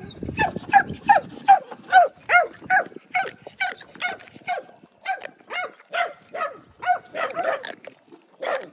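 A dog giving short, high-pitched yelps over and over, about two to three a second without a break.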